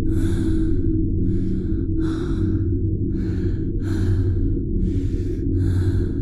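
A person breathing hard, with quick noisy breaths about twice a second, over a steady low hum.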